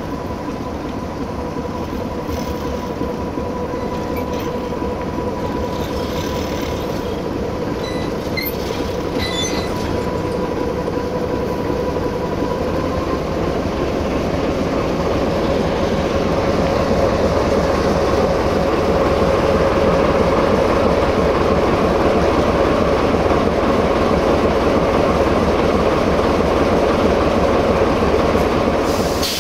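Diesel train moving past on the station tracks, growing louder over the first fifteen seconds or so with a steady whine over the running noise, then staying loud.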